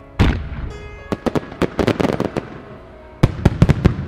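Fireworks starmine barrage: one deep boom just after the start, then a rapid run of sharp cracking reports about a second in, and another quick cluster of cracks near the end.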